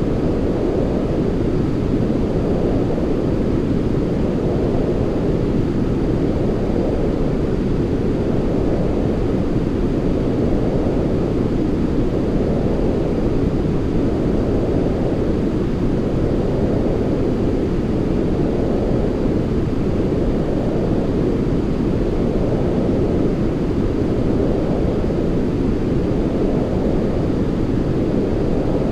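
Steady, deep rushing white noise for sleep, with no breaks, gently swelling and easing every few seconds.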